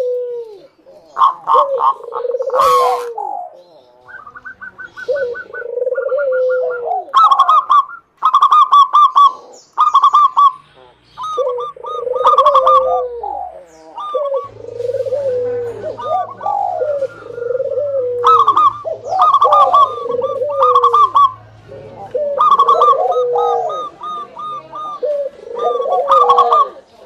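Zebra dove (perkutut) singing, phrase after phrase: quick runs of short higher cooing notes alternating with lower, falling coos.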